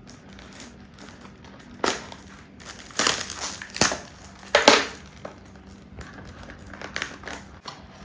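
A perfume box being squeezed and worked at by hand, with a few sharp crunching, crinkling sounds at about two, three, four and nearly five seconds in, as a tight-fitting bottle is pulled from its packaging.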